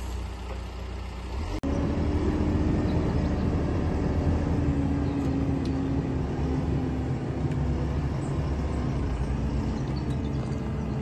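Merlo telehandler's diesel engine running steadily, with a humming tone that slowly drops in pitch over it. There is a brief dropout about a second and a half in.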